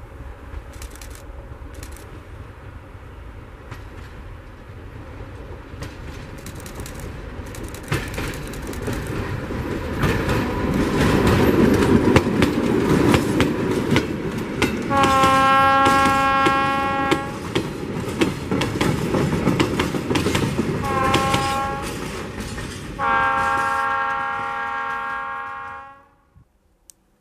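ČD class 751 diesel locomotive with its six-cylinder ČKD engine, hauling a freight train past: the engine grows louder as it approaches, and the wagons' wheels click over the rail joints. The locomotive's horn sounds three times, a long blast, a short one and another long one, and the sound cuts off suddenly near the end.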